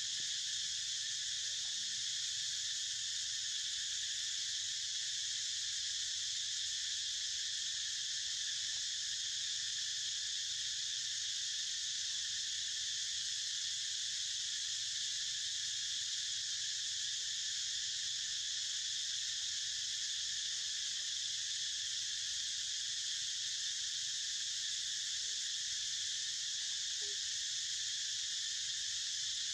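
Steady, high-pitched insect chorus droning without change.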